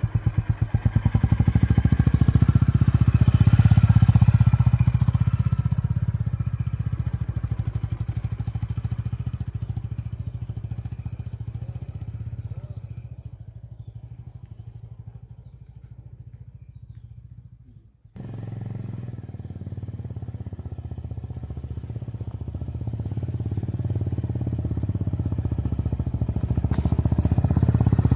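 Motorcycles riding slowly along a dirt trail one after another, their engines running at low speed. The sound is loudest about four seconds in and fades as the bikes move away. It breaks off abruptly about eighteen seconds in, then grows louder again near the end as more bikes approach.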